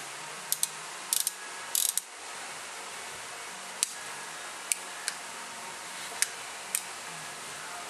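Old-style Ruger Single Six .22 LR single-action revolver clicking as it is worked to show it is not loaded, its cylinder being turned chamber by chamber. There is a quick cluster of sharp metal clicks in the first two seconds, then single clicks about a second apart.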